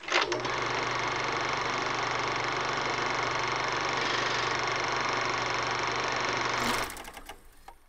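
Film projector sound effect: a steady mechanical whirr with a low hum, starting abruptly and dying away through a flutter of clicks near the end.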